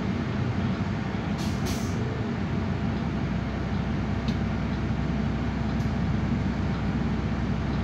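Inside a Solaris Urbino 12 city bus on the move: a steady drone of engine and road noise, with tyres running on a wet road. Two short air hisses come about one and a half seconds in.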